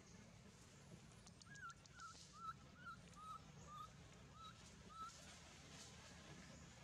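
Faint series of about eight short chirping calls, each a quick flick up in pitch, about two a second, starting about a second and a half in and stopping around five seconds, with a few faint clicks near the start.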